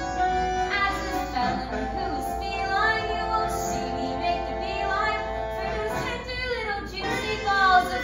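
Young cast singing with instrumental accompaniment, over a long held note through most of it.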